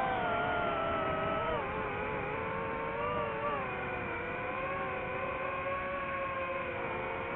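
Multirotor drone's motors and propellers whining: a stack of steady tones whose pitch dips about a second and a half in and wavers around three seconds, over a rushing noise.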